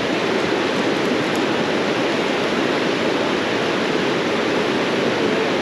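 Creek water running steadily: an even, constant rush.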